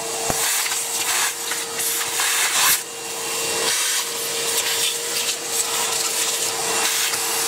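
Shop vacuum running with a steady whine, its hose nozzle drawn over a milling-machine vise and table to suck up metal chips, with irregular scrapes and rattles as the nozzle passes over the metal.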